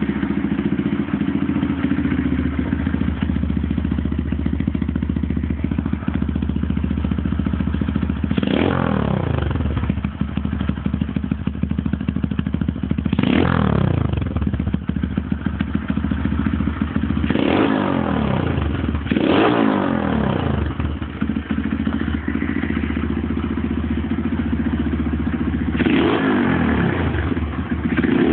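Skyteam PBR 125 mini bike's single-cylinder four-stroke engine idling through an NHRC aftermarket exhaust with the dB killer removed. It is blipped five times, each rev climbing sharply and dropping back to idle.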